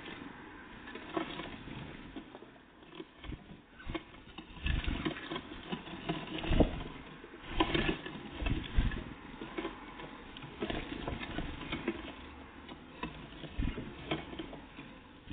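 Irregular tapping, scratching and soft thumps of small birds, great tits and blue tits, hopping about and pecking at a feeder close to the microphone.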